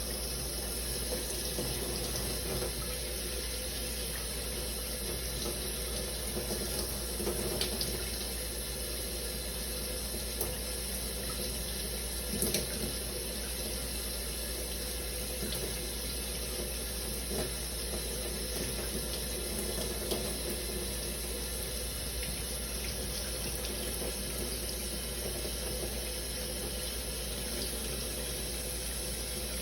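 Shower running steadily, water spraying and splashing, with a few faint knocks about 7, 12 and 20 seconds in.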